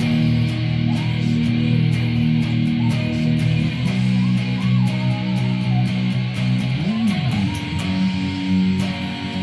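Band music without singing: an electric guitar melody over held guitar and bass chords, with regular short ticks on top. About seven seconds in, the low notes slide in pitch.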